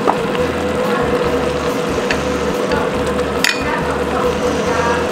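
Lamb broth with crumbled flatbread bubbling and sizzling in a wok over a gas flame, over a steady hum. A couple of faint ticks sound, the clearest about three and a half seconds in.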